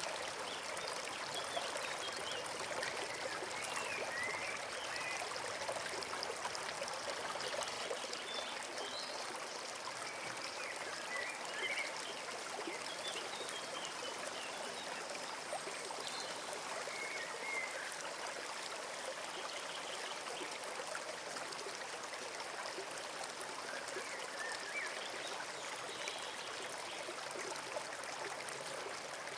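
A small forest stream babbling and trickling steadily, with scattered short bird chirps above it.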